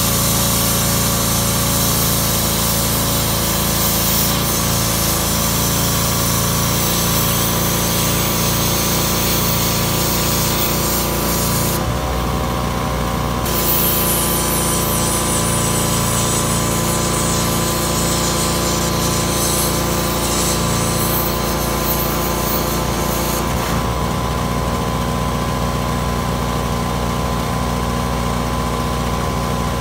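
Plasma cutter torch hissing as it cuts metal blade pieces, stopping briefly about twelve seconds in and cutting out for good about six seconds before the end. A steady machine hum runs underneath throughout.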